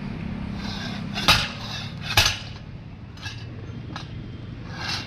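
Metal hand tools clinking and knocking, four or five sharp strikes about a second apart, over a low steady hum.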